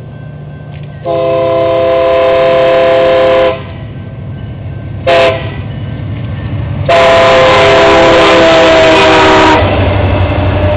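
New Mexico Rail Runner Express diesel locomotive sounding its multi-tone air horn for a grade crossing: a long blast, a short one, then another long blast. Under the horn the locomotive's engine and wheel rumble grows louder as the train reaches the crossing near the end.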